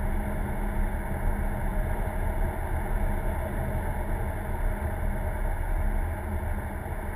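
Steady engine and tyre noise of a car driving, heard from inside the cabin: an even low drone with no change in pitch.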